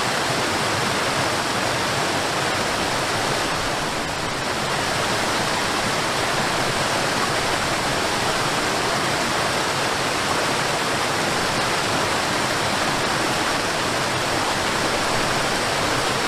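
Rushing water, a steady loud hiss that barely changes.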